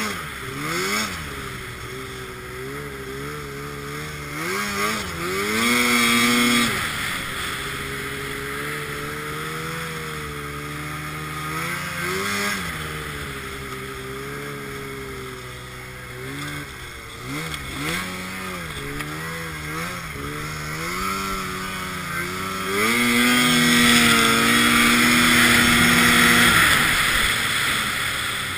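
Arctic Cat M1000 snowmobile's two-stroke twin engine under way, its pitch rising and falling with the throttle. It is pulled hard briefly about five seconds in, and again for a few seconds starting about 23 seconds in.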